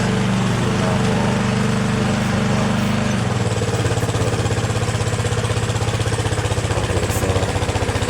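Lawnmower's small engine running steadily; about three seconds in its note drops and it runs on with a rapid, pulsing beat instead of stopping. The mower won't shut off because its ground wire makes a poor, dirty connection.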